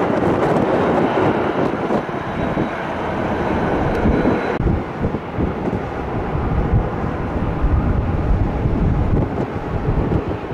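Jet airliner engines, a loud, steady rushing noise. About halfway through, the hiss above it drops away abruptly and the noise turns duller.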